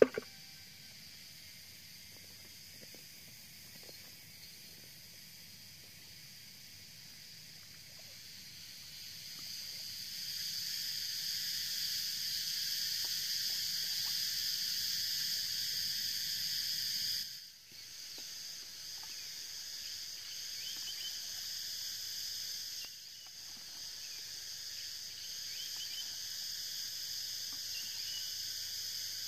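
Steady high-pitched droning chorus of insects, growing louder about a third of the way in. A short knock sounds right at the start.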